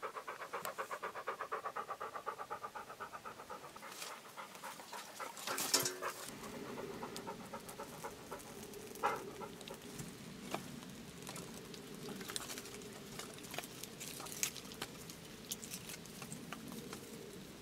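A dog panting quickly and evenly for the first few seconds. After a brief loud noise, a small fire of split-wood kindling crackles, with scattered sharp pops.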